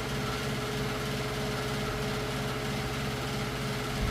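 A steady motor hum with a constant tone, unchanging throughout.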